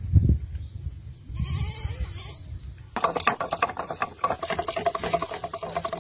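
A homemade spool fishing reel spinning fast as the line pays out, a rattling whir with a steady tone that starts suddenly about three seconds in, after a low rumble.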